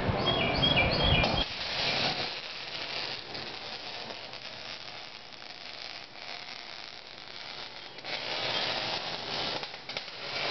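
Wire-feed (MIG) welder arc crackling and sizzling as steel shock hoops are welded into a pickup bed, louder near the end. A louder low rumble fills the first second or so.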